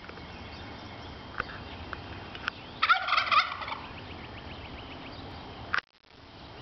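A wild turkey tom gobbling once, a loud, rapid rattling call of under a second about three seconds in. A sharp click near the end is followed by a brief dropout.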